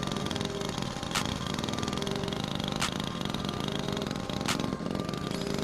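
A small engine running steadily at one speed, with a sharp click about every second and a half.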